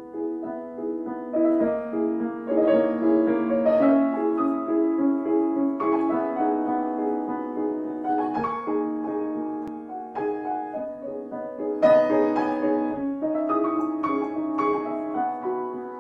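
Grand piano played solo: an instrumental passage of chords under a melody line, with a louder chord struck about twelve seconds in.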